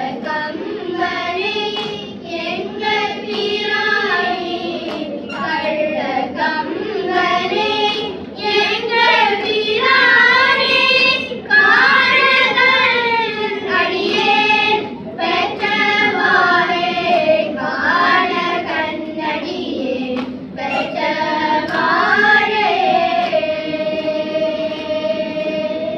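A group of children singing a Tamil devotional hymn together in unison, the melody winding up and down, and settling near the end into one long held note.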